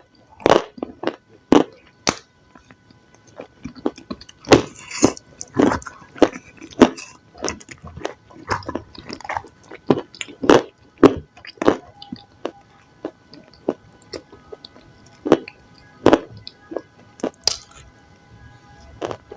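Close-miked eating: irregular crunchy bites and chewing of food, in quick clusters with short pauses between.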